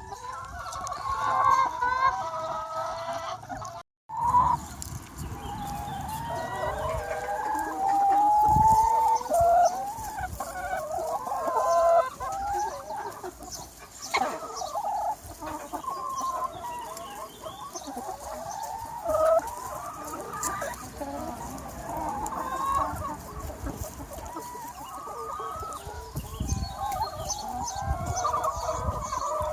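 A large free-range chicken flock clucking and calling over one another, with a rooster crowing in a long drawn call about eight seconds in. The sound cuts out for an instant about four seconds in.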